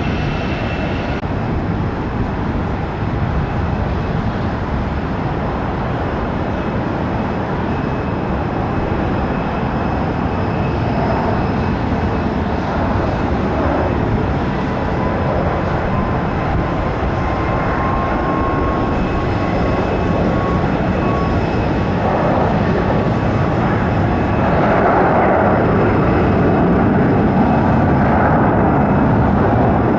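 Boeing 737-800 airliner landing, its CFM56 jet engines making a steady rush of noise with a faint whine that slowly rises in pitch; it gets louder about three-quarters of the way through.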